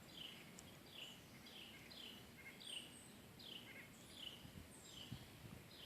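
Near silence outdoors, with a bird's short falling chirps repeating faintly, about two a second.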